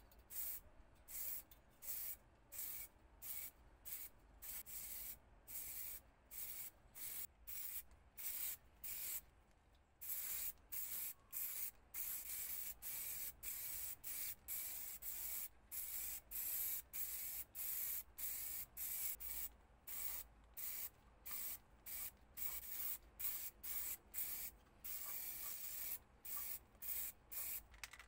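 Aerosol spray-paint can sprayed in a long run of short hissing bursts, quick puffs at first, then longer bursts from about ten seconds in.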